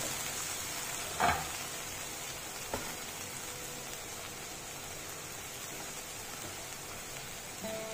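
Cluster beans and prawns sizzling softly in an aluminium kadai, a steady quiet hiss. A wooden spatula knocks briefly against the pan about a second in, with a faint tick near three seconds.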